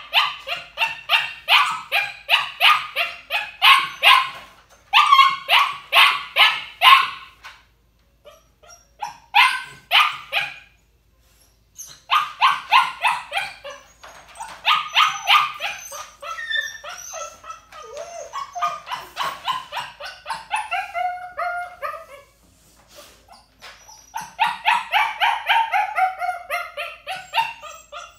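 Young puppy shut in a crate, barking in quick high-pitched runs of several yips a second with short pauses. From about halfway on, long whines and howls that fall in pitch are mixed in: crate protest barking and whining.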